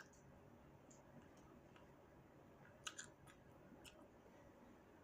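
Faint eating sounds picked up close to the microphone: a few soft mouth clicks of chewing, bunched about three seconds in, over near-silent room tone.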